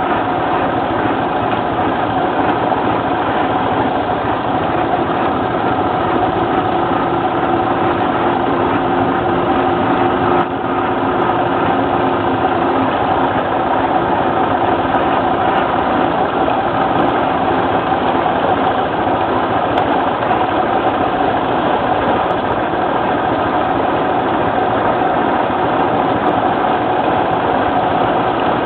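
An ATV engine idles steadily in fifth gear with no throttle, its even hum adding drag while a sled-dog team pulls the machine along a gravel road. An extra steady tone joins the hum about six seconds in and fades out around thirteen seconds.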